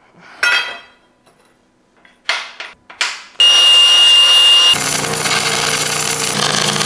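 A few short metal scrapes and clanks on a steel tube, then an angle grinder grinding a steel tube end with a high steady whine for about a second. After that, a MIG welder crackles steadily with a low buzz as it welds the tube joint.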